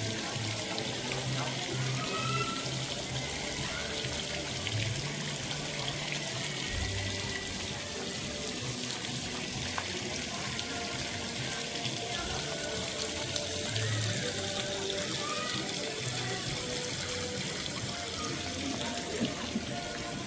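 Steady hiss of falling rain, with faint music playing underneath.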